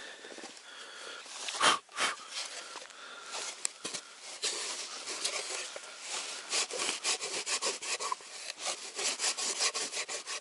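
A cloth rubbed back and forth over a hard black plastic housing: a run of quick, scratchy wiping strokes that grow busier in the second half, with a couple of louder handling knocks about two seconds in.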